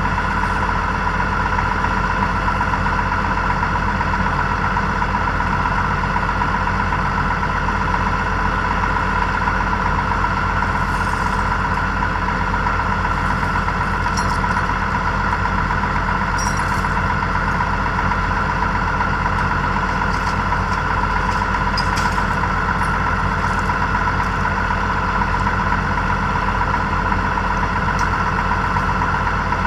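Tractor diesel engine idling steadily, with a constant high-pitched whine over the low engine hum. A few faint clicks come in the middle.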